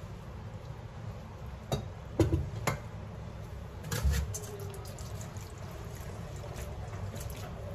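Water trickling and draining off boiled elbow macaroni into a stainless steel sink as the pot is tipped and shaken, with a few sharp knocks of the pot in the first half.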